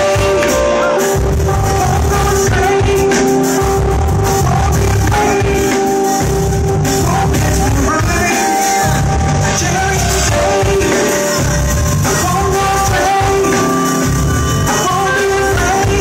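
Live R&B/soul-style band performance: a female vocalist singing over keyboards and drums, continuous throughout.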